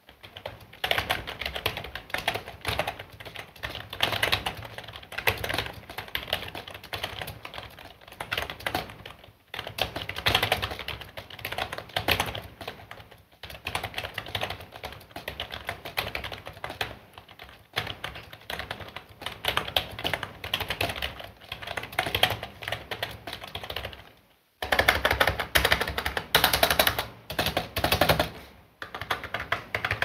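Fast typing on an L200 membrane 'pseudo-mechanical' keyboard with rubber-dome switches and pudding ABS keycaps: a rapid, continuous patter of key strokes, fairly quiet for a gaming keyboard. Near the end the typing pauses briefly, then resumes harder and louder.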